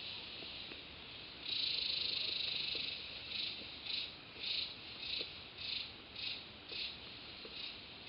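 High-pitched insect song. A steady buzz swells about a second and a half in and lasts just over a second, then breaks into pulses about twice a second that slowly fade.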